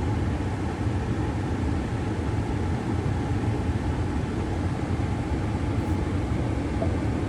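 2013 Ford Edge's climate-control blower fan running steadily at the end of a climate-control reset, a constant rush of air with a low hum under it.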